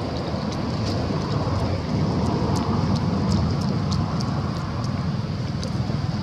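Steady low rumble of wind buffeting the microphone outdoors, swelling a little in the middle, with scattered short high ticks.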